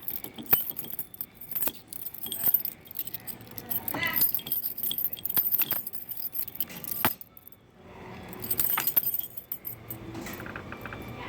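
A bunch of keys jangling and clinking, with scattered sharp metallic clicks. The jingling falls away briefly about seven and a half seconds in, then resumes.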